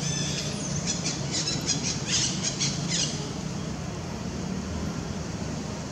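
Long-tailed macaque giving a quick run of short, high-pitched squeals, some falling in pitch, that stops about halfway through. A steady low hum runs underneath.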